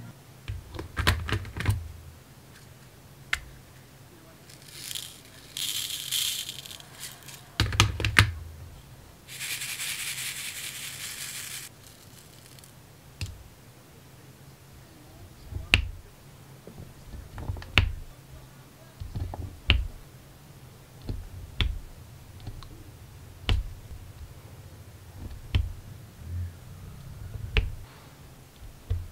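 Diamond painting: square resin drills rattling in a plastic drill tray for a few seconds, twice. Then a drill pen pressing drills onto the sticky canvas, a light sharp click about every two seconds.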